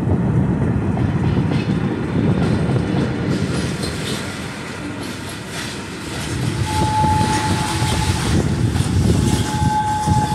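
Freight train of flat wagons loaded with steel billets rolling slowly past behind a diesel shunting locomotive: a steady low rumble with clicks and clacks from the wheels and couplings. A thin, steady, high squeal comes in twice in the second half.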